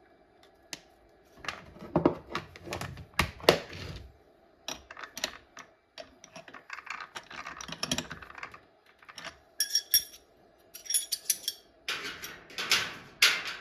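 Clicks and clatter of two small steel wrenches on a mini milling machine's spindle and collet nut as the collet holding a 2 mm end mill is tightened, with a few bright ringing metal clinks a little after the middle. The mill's motor is not running.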